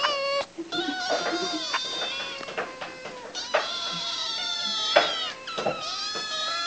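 Several kittens meowing, their high-pitched cries overlapping almost without a break, with a few short knocks among them.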